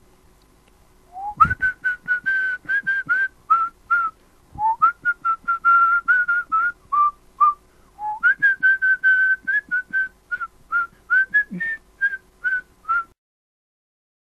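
A person whistling a short tune in three phrases of short notes, each phrase opening with an upward slide. The whistling stops near the end.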